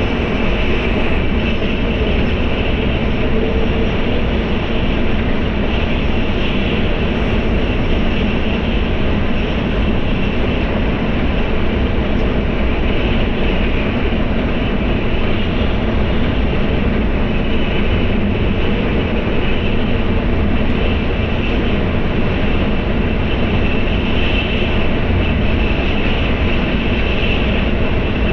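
Tokaido Shinkansen bullet train running, heard from inside the passenger cabin: a loud, steady, unbroken rumble.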